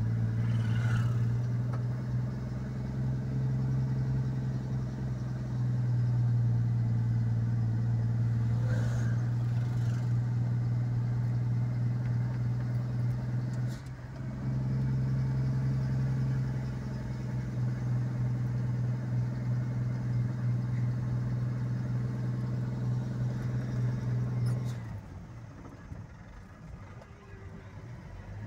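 A road vehicle's engine running steadily under way, heard from on board as a constant low hum. The hum breaks off briefly about halfway through, then resumes. It falls away near the end, leaving quieter road noise.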